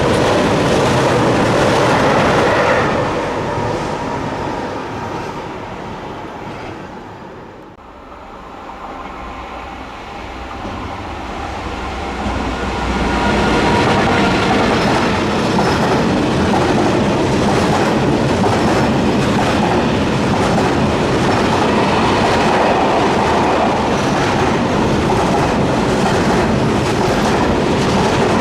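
Trains passing on a main line, wheels clacking over the rails. The first passage dies away about three seconds in, with a lull quietest about eight seconds in; a second train then builds up and runs past steadily.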